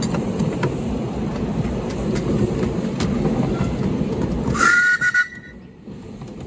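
Miniature railway train running, the passenger carriage rumbling with faint clicks over the rail joints. About four and a half seconds in, the locomotive gives a short whistle of two notes sounded together, and then the running noise cuts off abruptly.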